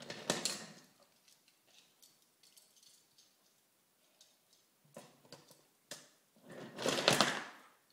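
Wooden toy trains and wooden track knocking and clacking as they are handled and pushed: a short clatter at the start, a few single clicks, and a louder burst of clacking about seven seconds in.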